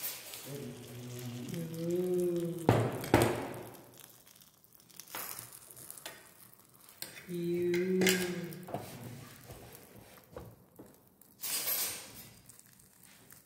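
Spoonfuls of noodle batter dropped into hot oil in the cups of a paniyaram pan, sizzling in short bursts, with a metal spoon knocking and scraping against the pan. A person's voice is heard briefly twice.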